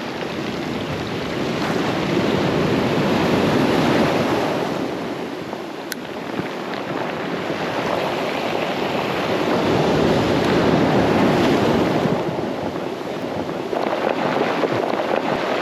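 Sea surf breaking on the shore, the waves swelling and ebbing slowly, loudest about four seconds in and again around eleven seconds.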